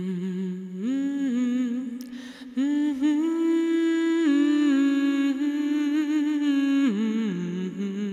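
Humming of a slow melody in long held notes that step up and down in pitch, with a short break about two seconds in.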